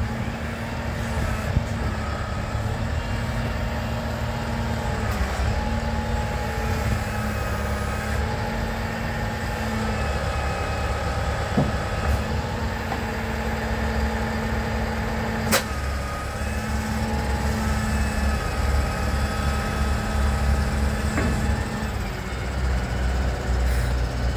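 XCMG XC938 wheel loader's 130 hp diesel engine running under load while its high-dump bucket is held raised and tipped over a trailer, with a hydraulic whine that rises and falls. A single sharp clank comes about two-thirds of the way through.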